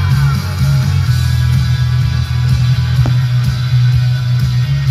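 Loud music with guitar over a strong, steady bass.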